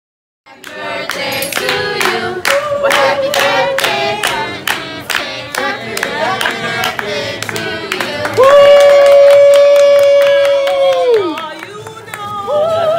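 A group of people singing a birthday song together, clapping in time, about three claps a second. The song ends on one long held note that drops away about eleven seconds in.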